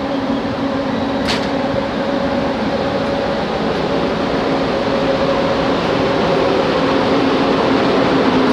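PKP EP07 electric locomotive moving off slowly at close range, a steady hum of its blowers and traction motors with a low tone and another about an octave above it, growing slightly louder as it passes. A short sharp click about a second in.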